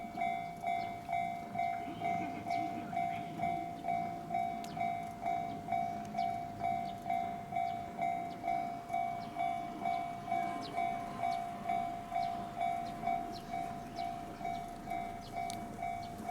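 Japanese level crossing's electronic warning bell ringing in an even, repeating beat of about two strokes a second, warning that a train is coming. A low rumble sits underneath.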